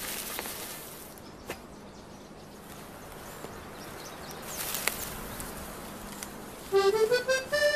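Quiet meadow ambience with a faint steady hum and a few soft, short knocks. Near the end, music comes in with a rising run of notes.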